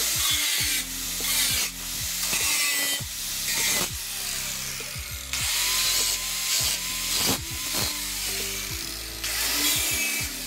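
Electric angle grinder working rusty car-body sheet steel in a series of short passes, its motor whine rising and falling between them.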